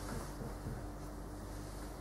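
Room tone in a small room: a steady faint hiss with a low electrical hum, and a few faint small rustles about half a second in.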